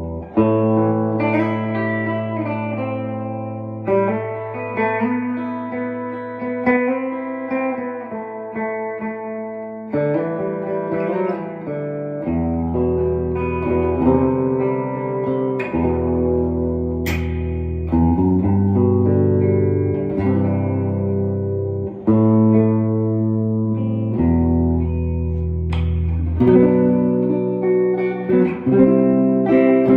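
A 1965 Harmony H72 full-hollowbody electric guitar with two DeArmond Goldfoil single-coil pickups being played clean. Chords and low bass notes ring out, changing every couple of seconds.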